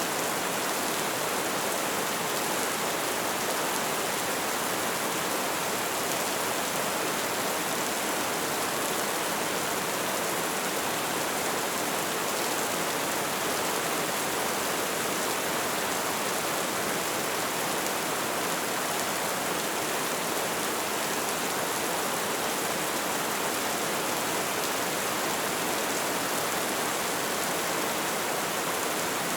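Light rain falling in a steady, even hiss.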